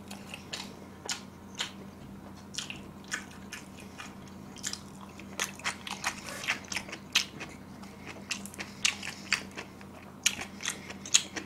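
Close-miked chewing of a mouthful of pizza: many short, wet mouth clicks and crackles at irregular intervals.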